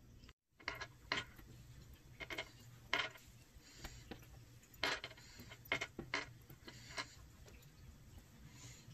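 Cardboard jigsaw puzzle pieces tapping and sliding on a wooden tabletop as they are picked up and fitted together: light, irregular clicks at uneven intervals.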